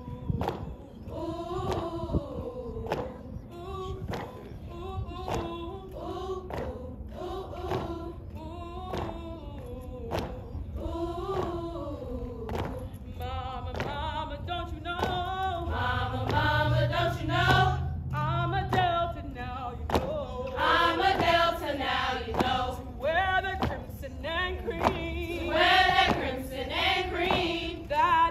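Group of women singing in unison, over a steady beat of thuds keeping time about every two-thirds of a second. The singing grows louder about halfway through.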